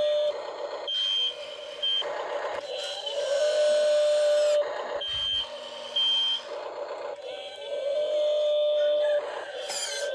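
Remote-control toy Volvo excavator's electric motors whining in short spurts, each a steady hum that slides up as it starts, as the arm and bucket dig, with short high beeps now and then.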